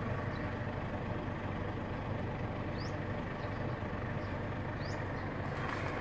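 Mitsubishi Pajero's 4M40 diesel engine idling steadily.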